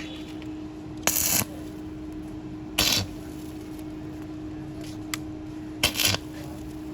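Three short bursts of hiss, each about a third of a second, over a steady low hum, with a small click just after five seconds.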